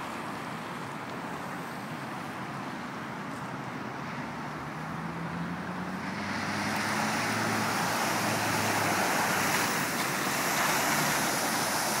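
Land Rover Defender driving through deep standing water: its engine is heard faintly rising in pitch as it approaches, then from about halfway a loud rushing hiss of water sprayed up by its tyres builds and carries on.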